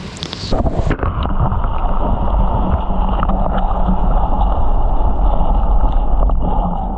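A splash, then lake water heard from under the surface about a second in: a loud, muffled low rumble of moving water with the high end cut off.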